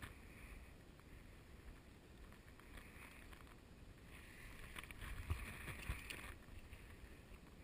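Faint sound of shallow river water with a low wind rumble on the microphone; the water sound swells for a couple of seconds, with a few low thumps, about four to six seconds in.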